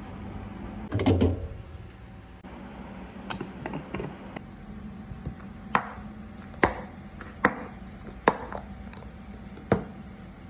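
Tableware and food containers being handled on a table: a clatter about a second in, then a run of sharp clicks and knocks from a plastic food container and a thermos being set down and handled, over a faint steady hum.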